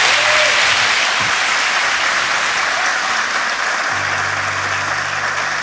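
Church congregation applauding steadily. About four seconds in, a low held musical note comes in under the clapping.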